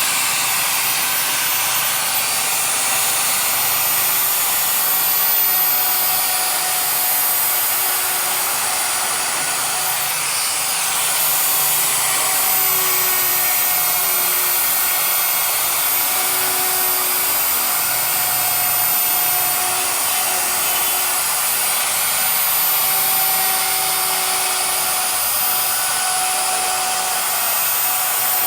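Electric power tool motor running steadily for the whole stretch, a constant whirring hiss with a faint, slightly wavering hum beneath it.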